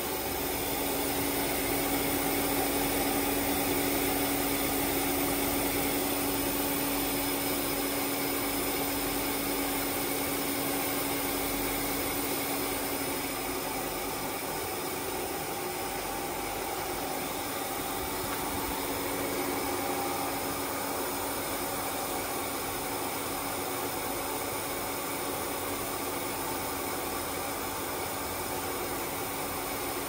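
TR-8000 fog humidifier running steadily as it blows thick mist: a constant motor hum over an even rush of air.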